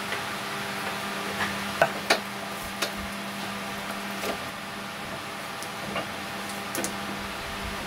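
Scattered clicks and knocks of a steering rope being fed through small brass pulleys on a wooden board, with two sharper knocks about two seconds in, over a steady low hum.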